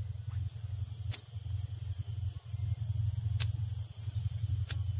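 Steady low hum, with the continuous high drone of insects such as crickets over it and three short sharp clicks, about a second in, past three seconds and near the end.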